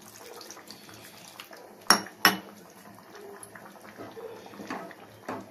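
Tamarind juice being poured into a pot of curry, with two sharp metal clinks against the pot about two seconds in and a few lighter knocks near the end.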